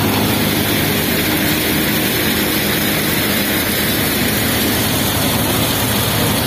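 Tractor-driven Mahindra Dharti Mitra thresher running steadily as it threshes soybeans. A loud, continuous machine din with a low engine hum underneath.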